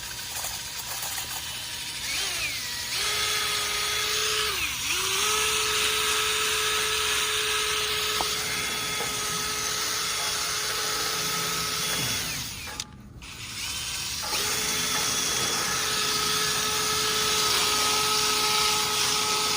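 Power drill spinning a dryer-vent cleaning brush, running at a steady whine that sags briefly under load about five seconds in, then stops about twelve seconds in and starts again two seconds later.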